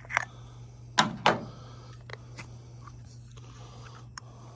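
Handling of a zinc additive bottle at the oil fill: two sharp crunching knocks about a second in, then a few light clicks, over a steady low hum.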